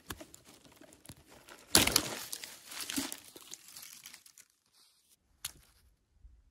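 A thin branch being snapped and torn off a leafy bush by hand: a sharp crack just under two seconds in, then a couple of seconds of crackling and rustling twigs and leaves as it is twisted free, dying away, with one small snap about a second later.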